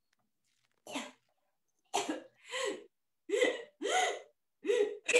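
A person making short, breathy vocal bursts, about six in a row roughly half a second apart, starting about a second in.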